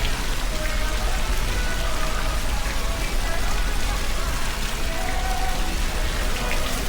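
Outdoor city ambience: a steady rushing hiss, with faint music and scattered distant voices underneath.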